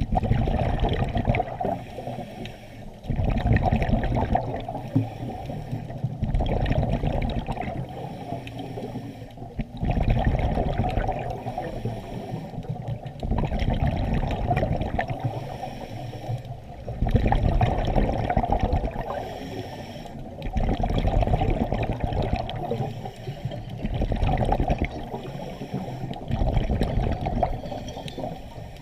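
Scuba diver's regulator exhaust bubbles, heard underwater: gurgling rushes of bubbles every three to four seconds, with quieter stretches between breaths.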